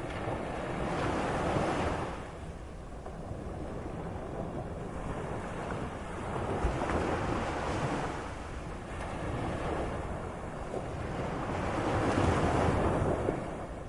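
Moderate sea surf: waves washing in and drawing back, swelling to a loud rush about every five seconds, three times, over a steady low rumble.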